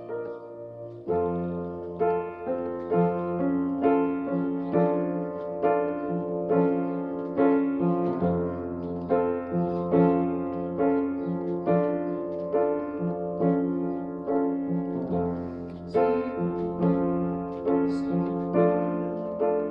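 Solo piano playing a steady, even flow of repeated notes over long held bass notes, with the bass changing about every seven seconds.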